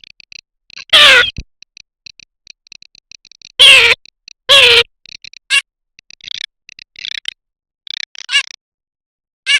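Garganey duck calls: three loud nasal calls, each falling in pitch, about a second in and twice around four seconds, with a soft dry rattle of rapid ticks between them, then softer, shorter calls.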